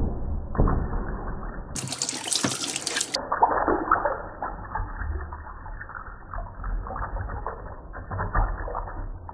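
Thin stream of water running from a bathroom tap into a washbasin, splashing over hands held under it.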